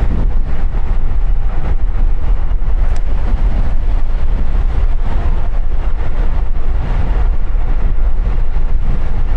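Wind buffeting the microphone while riding a bicycle: a loud, steady low rumble with a hiss of noise above it.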